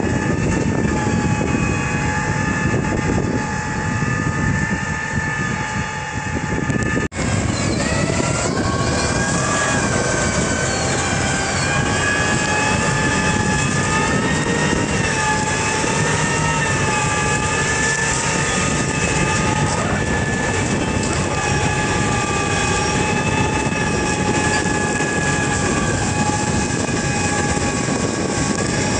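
Large farm tractor's engine running steadily under load as it pulls an 8-row Paratill deep-tillage implement through the ground, a constant drone with several whining tones that drift slowly in pitch. The sound cuts out for an instant about seven seconds in and comes back with its tones shifted.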